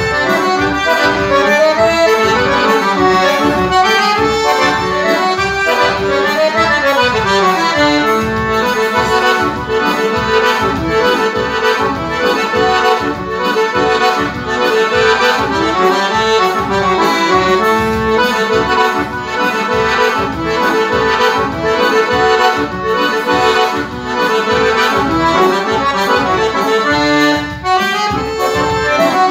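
Solo piano accordion playing a lively instrumental tune: quick melody notes on the right-hand keys over an even pulsing bass-and-chord beat from the left-hand buttons, with a fast run down the scale about seven seconds in.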